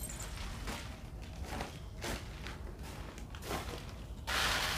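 Soft scattered taps and knocks from hands working maize dough and steel dishes. A louder rushing hiss comes in about four seconds in.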